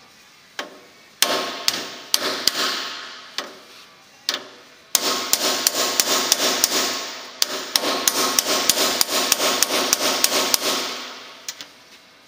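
Hammer striking a metal bearing driver, tapping an axle repair bearing into the van's axle housing. The blows ring metallically. There are a few spaced blows at first, then from about halfway a fast, steady run of several strikes a second, which stops shortly before the end.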